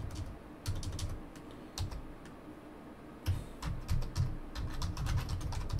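Typing on a computer keyboard: a few scattered key clicks at first, then a quicker run of keystrokes over the last two and a half seconds.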